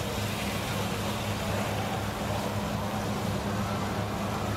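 Sauce and noodles sizzling steadily on a hot iron plate over a lit gas ring (sizzling mee), with a steady low hum underneath.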